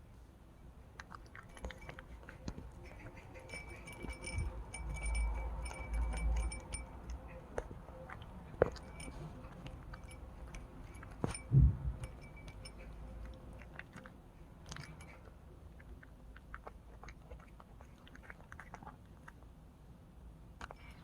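A cat crunching and chewing dry kibble, a run of small irregular crunches. A single loud low thump about eleven and a half seconds in.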